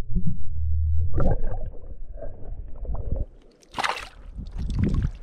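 Muffled low rumble heard through an underwater camera. From about a second in, shallow seawater sloshes and splashes around feet wading over dead coral rubble, with two sharper splashes near the end.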